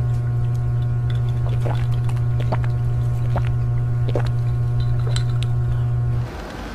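A loud, steady low hum with faint clicks about once a second, cutting off suddenly about six seconds in.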